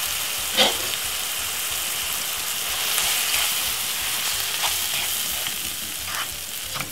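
Beaten egg and diced vegetables sizzling in hot oil in a non-stick frying pan, with a slotted spatula scraping and pushing the egg around the pan; a sharper scrape comes about half a second in.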